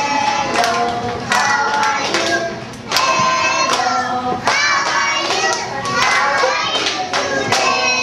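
A group of young children singing together, with scattered sharp clicks cutting through the singing.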